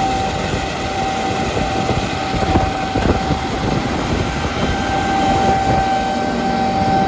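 Combine harvester running steadily while cutting wheat, a constant mechanical drone with a steady whine; a second, higher whine joins about halfway through.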